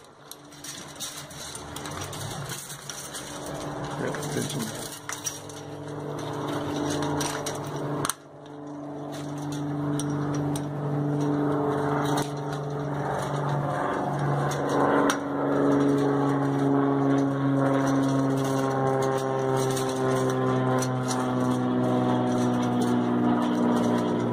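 An engine running steadily, its pitch drifting slowly up and down, growing louder over the first ten seconds. Light clicks of chain-link fence being handled come through in the first several seconds.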